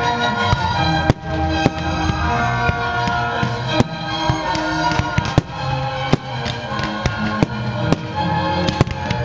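Fireworks launching and bursting, about ten sharp bangs at irregular intervals, over continuous music.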